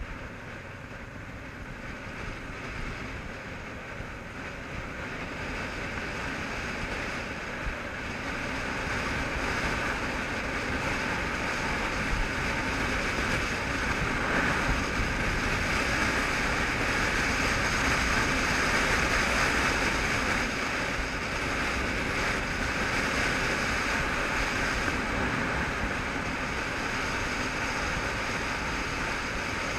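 Wind rushing over a helmet-mounted camera on a moving motorcycle, with the bike's engine and tyre noise underneath. The rush grows louder over the first ten seconds or so, then holds steady.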